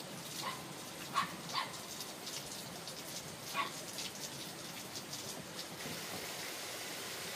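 A dog giving three or four short barks, two close together about a second in and another a couple of seconds later, over a steady hiss in the background.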